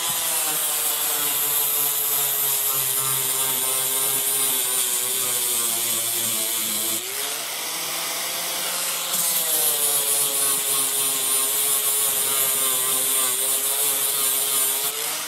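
Electric angle grinder with a 60-grit flap disc grinding thick Bondo body filler off a car roof: a steady motor whine over a harsh grinding hiss. The motor's pitch sags as the disc is pressed into the filler. About halfway through the load eases briefly and the pitch climbs back up, then it is loaded down again.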